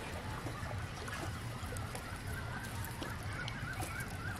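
A bird calling: a run of short, high, repeated notes, about three a second, over a steady low hum.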